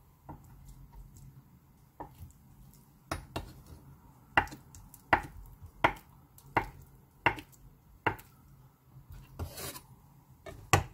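A chef's knife cuts through a block of tofu and knocks on a wooden cutting board. There are about eight sharp chops, each less than a second apart, then a short scraping noise near the end.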